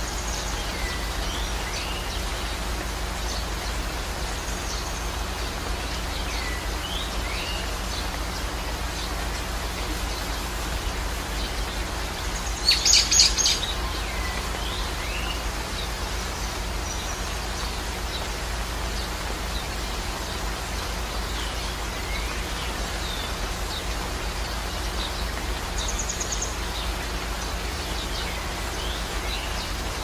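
Outdoor nature ambience: a steady rushing hiss like rain or running water, with scattered short bird chirps and one louder, brief flurry of high bird calls about halfway through.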